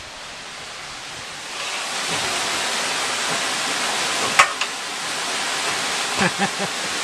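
Steady rush of running water that grows louder about a second and a half in, with a sharp click a little after four seconds in and a few soft knocks near the end.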